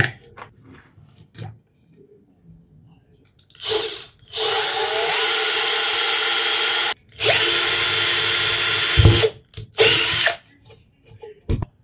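Cordless drill boring a hole through a plastic drink bottle, running in a short burst, then two steady runs of a couple of seconds each, then a final short burst. There are small handling clicks around it and a knock near the end.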